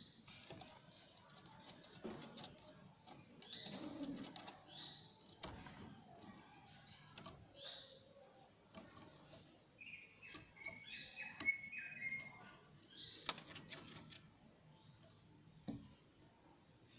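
Cucak ijo (greater green leafbird) giving scattered short, high chirps and a brief warbling run of notes, with a few sharp clicks in between, fairly faint.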